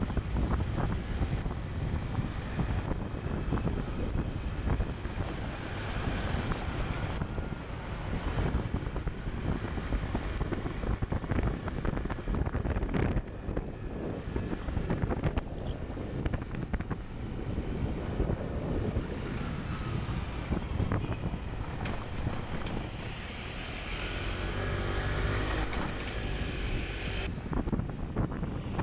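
Riding a scooter: wind rushing over the camera's microphone, mixed with the scooter's engine and the tyres on cobblestones, with many small knocks.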